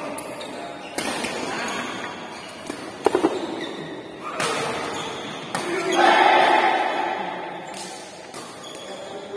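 Spectators' voices in a large hall, broken by a few sharp knocks of a ball-game match, then a burst of crowd shouting about six seconds in that dies away.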